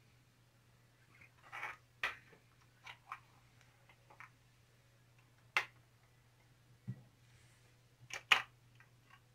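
Handling noise from a plastic RC model truck being turned over by hand: a scattering of short clicks and knocks, the loudest near the end, over a faint steady low hum.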